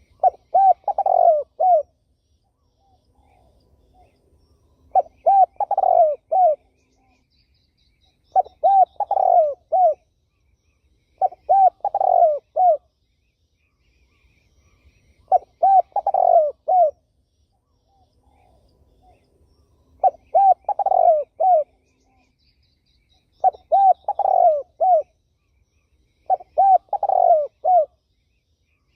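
Spotted dove (terkukur) cooing: eight short phrases of four or five notes each, repeated every three to four seconds. Faint high chirps of other small birds between the phrases.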